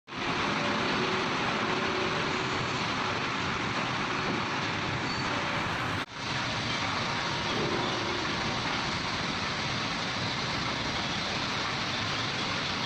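Wood crusher running, its blades and hammers chipping timber: a steady, dense mechanical din, broken by a brief drop about six seconds in.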